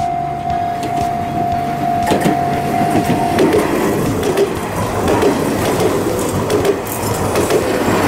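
Railway level crossing alarm sounding a steady electronic tone as an Enoshima Electric Railway train approaches. About three and a half seconds in the tone stops and the train's rumble and wheel clatter take over as the cars pass close by.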